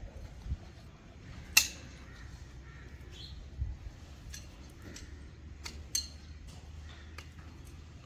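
Hoof nippers cutting and clicking on a calf's hooves during hoof trimming: a few sharp clicks, the loudest about one and a half seconds in, over a low steady rumble.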